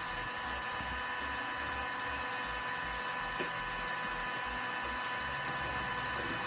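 Steady electrical hum and hiss with a thin, even whine and no distinct events: background noise of the recording.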